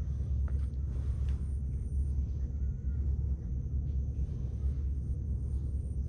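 Faint footsteps on a dirt trail over a steady low rumble on the microphone, with a faint, steady high-pitched tone.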